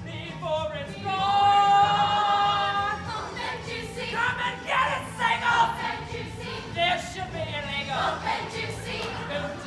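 A chorus of young voices singing together in a musical number, with a long held note about a second in, then shorter, choppier phrases.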